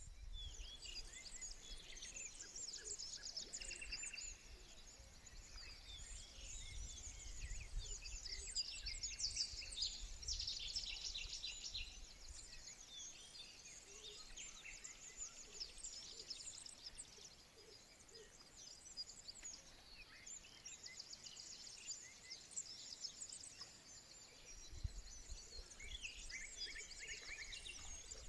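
Several small birds singing and chirping, with fast high trills and twitters that keep overlapping. A low rumble sits under them for the first dozen seconds and comes back near the end.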